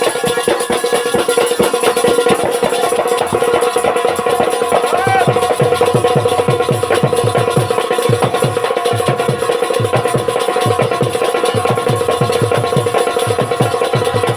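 Instrumental interlude of Rai folk music: a steady held note with rattling, jingling percussion, and fast, evenly repeating drum strokes joining from about five seconds in.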